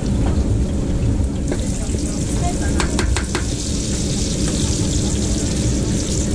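Potato pancakes sizzling steadily as they fry in large pans of hot oil, with a quick run of sharp clicks about three seconds in.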